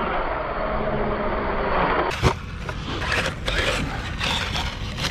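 Arrma Kraton EXB RC truck running over dirt: brushless motor and drivetrain whirring with tyres scraping, a sharp knock about two seconds in, then uneven bursts of running. The drivetrain has been clicking, which the owner puts down to worn diff internals.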